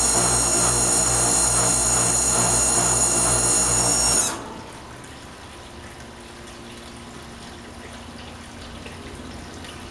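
Faulty air conditioner running with a high-pitched whine over a low hum, then shutting off about four seconds in, the whine dipping as it cuts out; a faint steady hiss remains.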